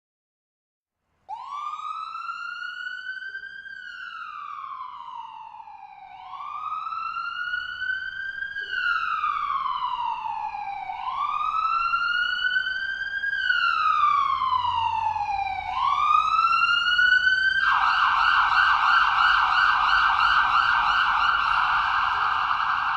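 Ambulance siren starting about a second in with a slow wail that rises and falls in pitch four times, each cycle lasting about four and a half seconds. About three-quarters of the way through it switches suddenly to a rapid yelp, and it grows louder overall.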